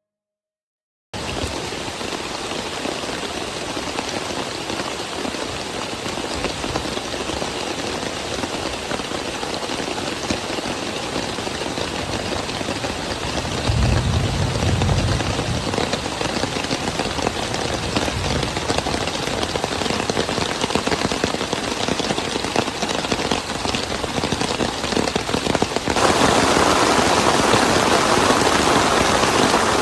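Steady rain, a dense even hiss of falling drops, starting suddenly about a second in. A low rumble swells briefly around the middle, and near the end the rain turns slightly louder and brighter all at once.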